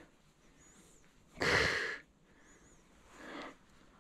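A person breathing heavily while walking: a loud rushing breath about one and a half seconds in and a fainter one near the end.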